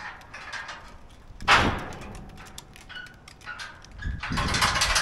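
Metal tie-down clips and hardware clanking and rattling against a car trailer as they are hooked on. There is one loud clank about a second and a half in and a rattling stretch near the end.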